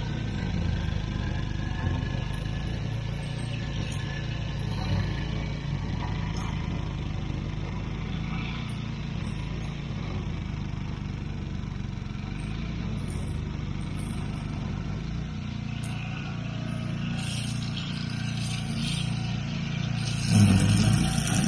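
Petrol lawn mower engine running steadily, with a brief louder surge near the end.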